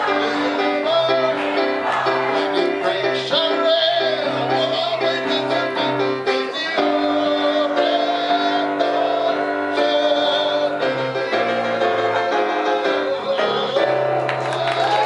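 Live piano music with voices singing, loud and continuous.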